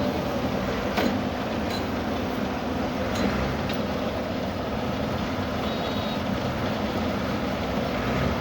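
Silage bale wrapping machine running steadily at work, a continuous mechanical hum, with a sharp click about a second in and another about three seconds in.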